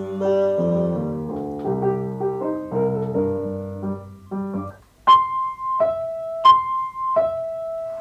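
A short keyboard instrumental that stops about two thirds of the way through. After a brief gap, a two-tone ding-dong doorbell chime sounds twice, a high note then a lower note each time, and the last low note rings on.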